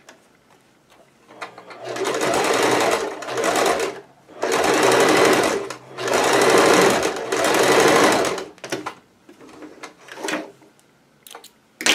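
Domestic sewing machine running in two long stitching runs, each with a brief slowdown, sewing a trouser pocket to the top edge at the waist. Between and after the runs come quieter sounds of fabric being handled, and a sharp click near the end.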